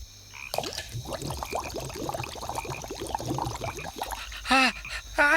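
Cartoon sound effect of a liquid bubbling and gurgling as the sneeze-cure mixture is made: a quick run of short blips that goes on for about three and a half seconds. It is followed near the end by two short warbling, voice-like sounds.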